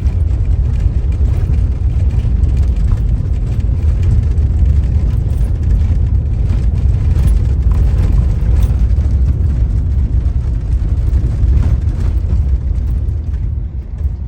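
Car driving over a rough unpaved road, heard from inside the cabin: a steady low rumble of tyres and suspension with scattered small knocks and rattles. The rumble eases near the end as the car reaches pavement.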